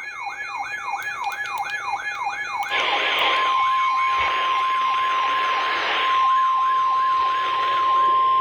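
Electronic siren in rapid repeating pitch sweeps, about two and a half a second, over steady high tones. About a third of the way in, a steady 1050 Hz weather-radio warning alarm tone and a rush of noise join it. Both stop abruptly at the end.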